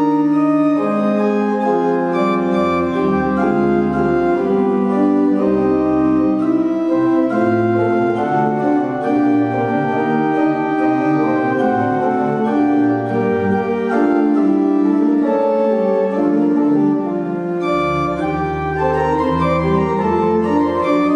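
Church organ playing the closing voluntary: sustained chords that change in steps, with deep pedal bass notes entering and dropping out several times.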